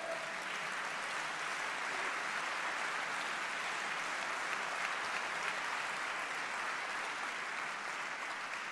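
Audience applauding steadily after a rousing line, easing off near the end.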